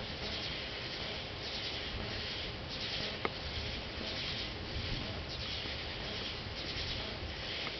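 Night insects calling: repeated short buzzy pulsed chirps from several insects overlapping, with one sharp click a little after three seconds.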